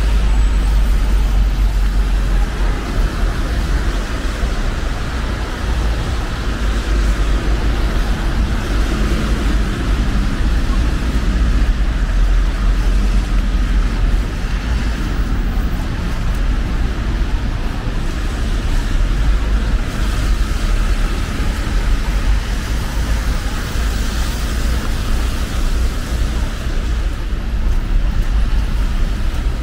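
Steady city street traffic noise, with a strong deep rumble under an even hiss.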